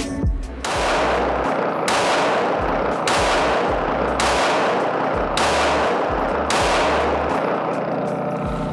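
Six shots from a Glock G42 pistol in .380 ACP, fired at a steady pace a little over a second apart, each one ringing on in the enclosed indoor range.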